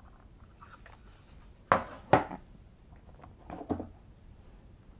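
Handling of AMD Ryzen Threadripper CPUs in their plastic carrier frames: two sharp plastic clicks about two seconds in, then a couple of softer knocks a little later.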